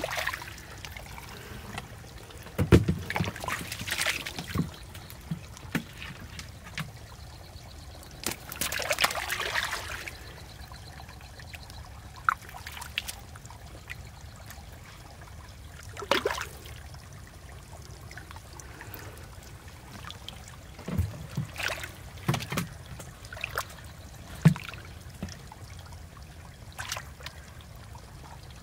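Hands groping through shallow muddy water, with irregular splashes and squelches and a longer slosh about a third of the way through.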